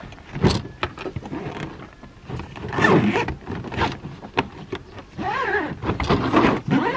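A hard-shell suitcase lid shut with a sharp knock about half a second in, followed by handling knocks and the case's zipper pulled round the rim in several sweeping strokes.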